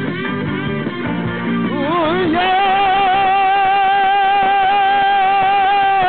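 Rock band music with guitar: chords for about two seconds, then a lead part bends up into one long high note held with vibrato.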